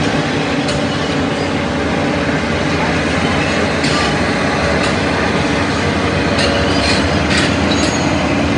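Caterpillar 395F crawler excavator on the move: its diesel engine drones steadily under the rattle and squeal of its steel track links, with several sharp metal clanks in the second half.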